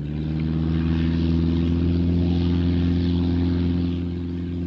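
De Havilland Tiger Moth biplane's small four-cylinder inverted inline engine and propeller running at a steady speed, a rather odd noise, fading up over the first second.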